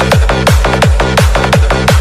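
Electronic dance remix built around a hard, fast kick drum, about four kicks a second, each falling sharply in pitch, over a steady bass line.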